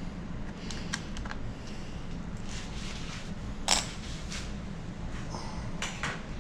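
A few light, scattered clicks and taps of small hard parts or tools being handled, the loudest a little past halfway, over a steady low hum.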